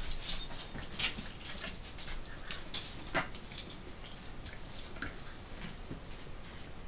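A border collie and a young puppy playing: scattered short scuffles and clicks, the loudest about three seconds in.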